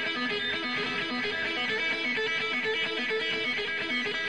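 Background music: a guitar picking a repeating melody of notes.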